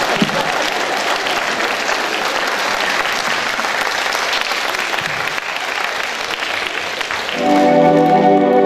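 Audience applauding steadily. Near the end a band's keyboard comes in with sustained organ-like chords.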